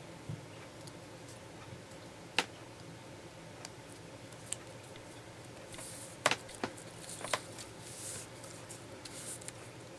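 Cardstock die-cut pieces being handled and pressed onto a card base: faint paper rustling and sliding, with a sharp tap about two seconds in and a few more taps a little past the middle.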